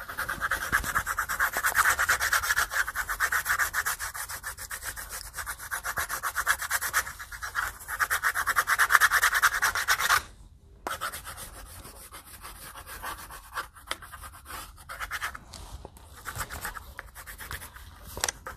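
Colored pencil scribbling fast back and forth on paper over a clipboard, shading in a large area. The strokes stop briefly about ten seconds in, then carry on more softly.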